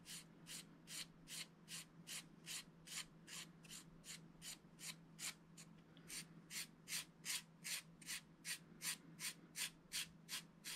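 Stiff flat paintbrush dry-brushing across a painted XPS foam column: short, quiet brushing strokes repeated evenly, about three a second.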